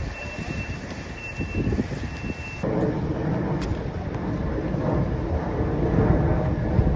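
A vehicle's reversing alarm beeping, a high steady tone about once a second, over outdoor street noise. About two and a half seconds in, the sound cuts abruptly to a louder, steady low rumble of vehicle engines and traffic.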